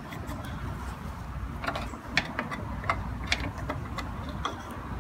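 Scattered sharp plastic clicks and ticks as the oil dipstick cap on a Briggs & Stratton push-mower engine is twisted loose and pulled from its fill tube, over a steady low rumble.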